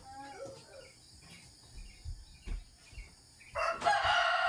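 A rooster crows, one loud, long call that starts about three and a half seconds in. Before it come faint chirping bird calls and a few soft thumps.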